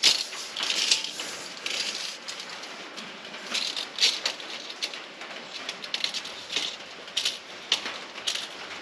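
Metal tape measure blade rattling and scraping in irregular short bursts as it is worked to hook its end onto a board.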